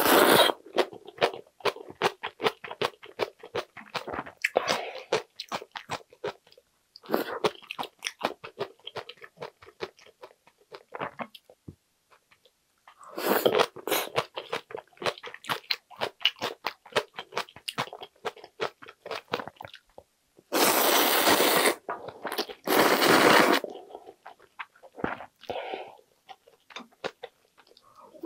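A person eating ramen noodles: rapid wet chewing and crunchy clicks, broken by loud slurps of noodles near the start, about halfway through, and twice near the end.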